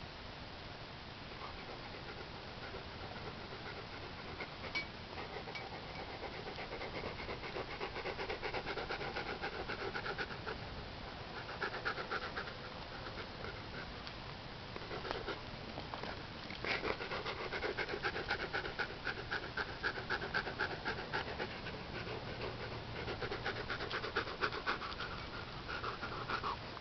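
Siberian husky–wolf hybrid panting quickly, faint at first, then in stretches of a few seconds with short pauses.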